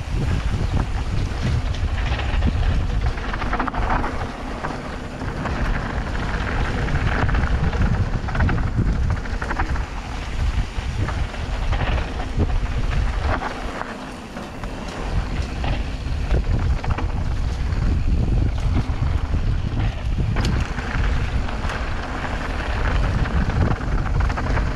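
Wind rumbling on the microphone, mixed with tyre and bike noise from a mountain bike riding fast down a dirt trail. It eases briefly about fourteen seconds in.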